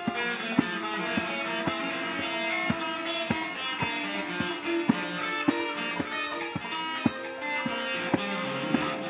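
Instrumental stretch of a song: guitar over a steady beat of about two strokes a second.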